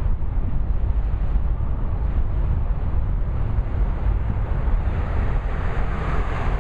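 Freight cars of a manifest freight train rolling past with a steady rumble, wind buffeting the microphone. Near the end the sound grows louder as a van drives past close by.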